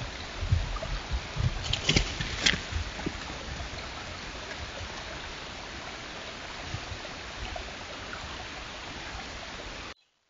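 Steady, even hiss from the trail camera's own recording, with a few low knocks and two sharp clicks about two seconds in; the hiss cuts off suddenly near the end.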